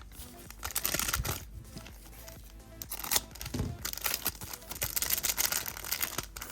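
Crinkling and tearing of a plastic trading-card pack wrapper, in two bouts: one about a second in, and a longer one from about three seconds in to near the end, over background music.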